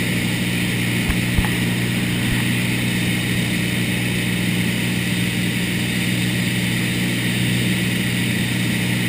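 Small propeller airplane's piston engine and propeller droning steadily in cruise, heard inside the cabin as a low, even hum with rushing air noise. A brief faint knock comes about a second and a half in.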